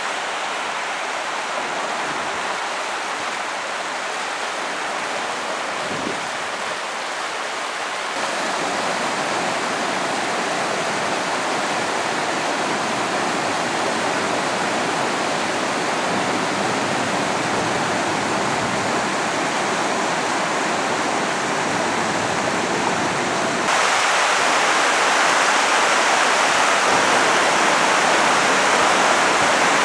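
Whitewater cascading through a narrow rock gorge, a steady rushing of falling water. It gets louder abruptly about eight seconds in and again near the end.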